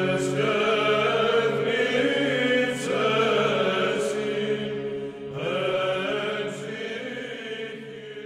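A choir chanting sung words in long phrases over a steady low held note, in the manner of Orthodox church chant. It slowly fades out toward the end.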